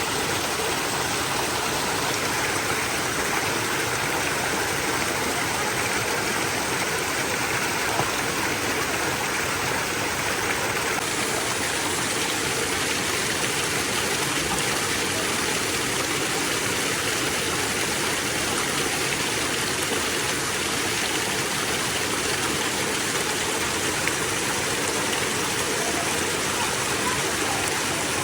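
Running water flowing with a steady, unbroken rush.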